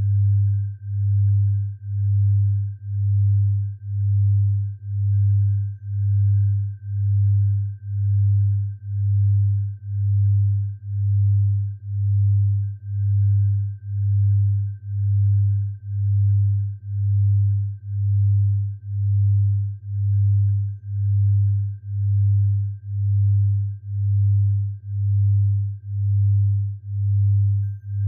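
Electronically generated tinnitus sound-therapy tones: a deep, pure tone that swells and fades about once a second, with a faint, steady high tone above it.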